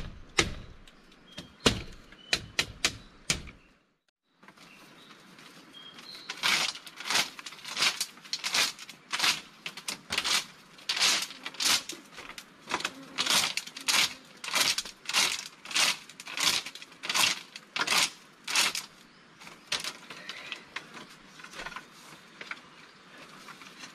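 Repeated chopping blows from a blade striking wood: sharp knocks for the first few seconds, then after a brief break a long run of steady strokes about two a second, growing fainter near the end.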